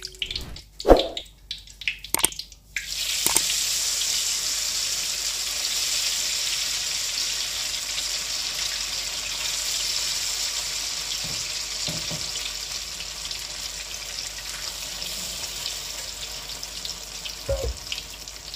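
Battered tempeh slices deep-frying in hot oil in a wok: a steady loud sizzle starts about three seconds in and slowly dies down. A few short clicks and knocks come before the sizzle begins.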